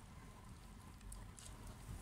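Faint, sparse chewing clicks of cats eating, over a low rumble.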